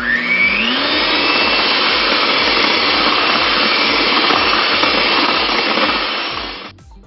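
Electric hand mixer winding up to speed, then running steadily as its beaters whip cream cheese filling with chopped Oreos in a glass bowl. It stops suddenly near the end.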